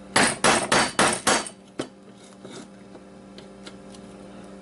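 Hammer blows on a tool wedged into a hard drive to pry out a stuck platter: a quick run of five sharp knocks, about three a second, then a few lighter taps.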